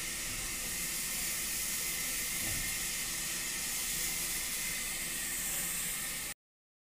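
Steady, even hiss that cuts off abruptly near the end.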